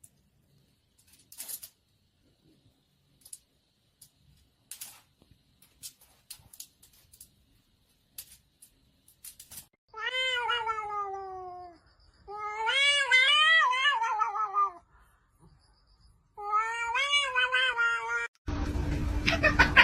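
A cat yowling: three long, drawn-out meows with a wavering pitch, after several seconds of faint scattered taps and clicks. Near the end a noisy background with a low hum cuts in suddenly.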